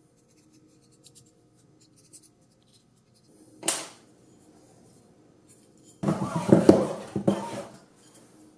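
Hands handling a guide scope and its plastic mounting plate: a few faint clicks, a short scrape about three and a half seconds in, then a louder stretch of rubbing and scraping of plastic parts from about six seconds in that lasts nearly two seconds.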